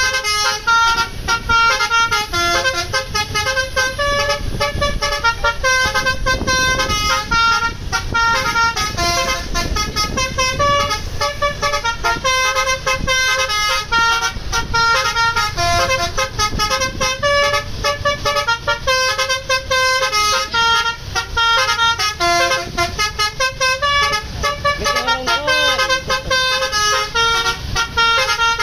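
Bus basuri (telolet) multi-tone air horn playing a fast melody of short stepped notes without a break, over the low rumble of the bus engine.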